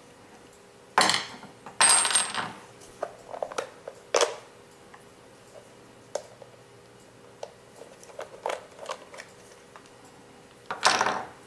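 Metal tools and small parts clinking and clattering as they are handled and set down on a wooden workbench. There are a few sharp clatters, one about two seconds in with a brief metallic ring, small ticks in between, and another clatter near the end.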